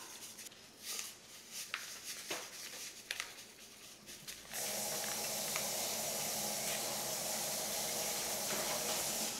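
Faint rustling and ticking of a paper jello packet as the gelatin powder is shaken out into a glass dish. About four and a half seconds in, a steady hiss of water running from a kitchen tap starts suddenly and cuts off at the end.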